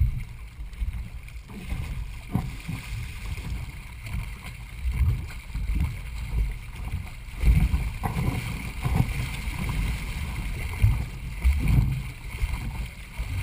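Racing canoe under way, heard from a camera mounted on the boat: paddles working the water and water rushing along the hull, with uneven low thumps about every second.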